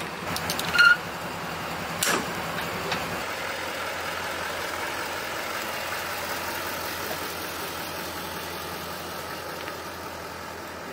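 GMC Sierra dually pickup truck engine running steadily while towing an empty aluminum car trailer, with a few sharp metallic clanks in the first two seconds.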